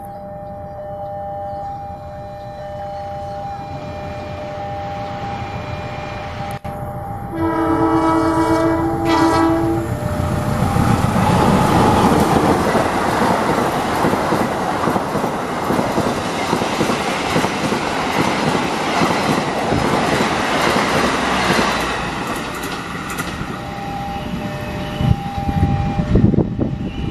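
A steady two-tone level-crossing warning signal sounds as an Indonesian passenger train approaches at speed. About seven seconds in, the diesel locomotive gives a horn blast of about two seconds. The train then passes close by for about twelve seconds with loud wheel-on-rail noise and clickety-clack, and the warning tones are heard again near the end.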